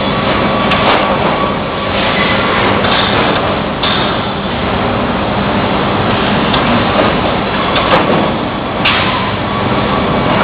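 Sawmill edger line running: a loud, steady mechanical din with a low hum, broken by a few sharp knocks, two of them close together about eight seconds in.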